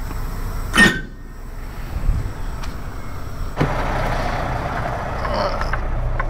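Semi truck's diesel engine idling with a steady low rumble. A short, sharp loud noise comes about a second in, and the sound grows louder a little past halfway.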